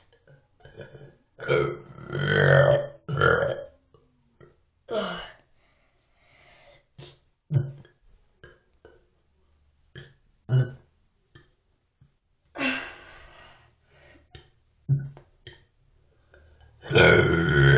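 A person burping on purpose, one burp after another with short pauses. A long, loud one comes about two seconds in, shorter and fainter ones follow, and another long, loud one starts near the end.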